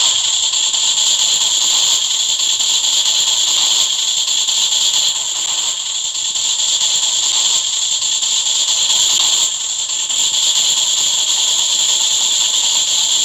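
Steady, loud sizzling hiss of a McDonald's deep fryer, the frying-oil sound from the restaurant kitchen.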